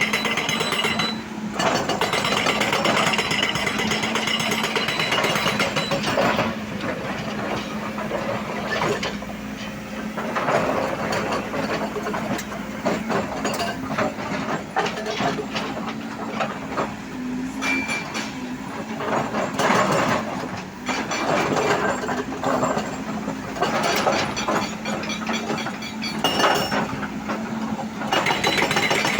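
Excavator at work: its engine and hydraulics run with a steady hum, under frequent metallic knocks and clatter.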